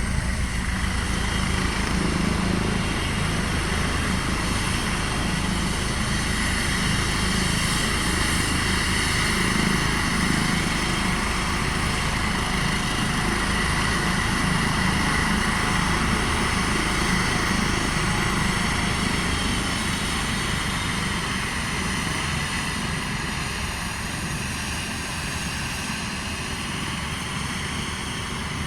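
Airbus H135 helicopter running steadily, its turbine whine over the rotor noise, growing slightly quieter over the last several seconds.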